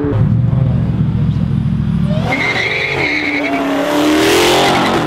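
A car accelerating hard past at close range: a low engine note for the first two seconds, then a high tire squeal and rising roar of tire and exhaust noise that peaks near the end.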